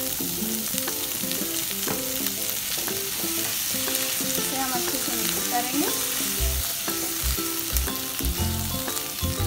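Onion, garlic, ginger, green chilli and tomatoes frying in hot oil in a pan, sizzling steadily while being stirred.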